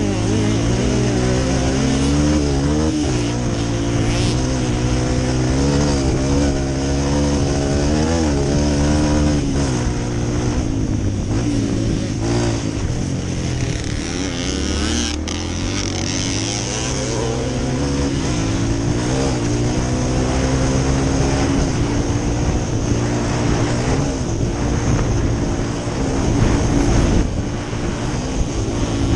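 Dirt bike engine running hard under way, its pitch climbing and dropping again and again as the throttle opens and closes.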